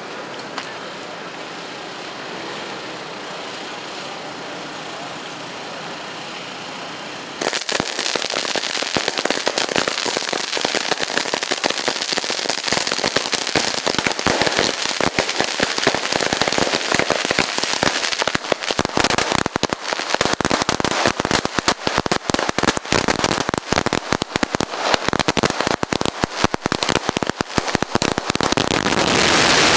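A string of firecrackers going off: a steady crackling hiss at first, then about seven seconds in it turns suddenly louder into a dense, rapid run of bangs that keeps on.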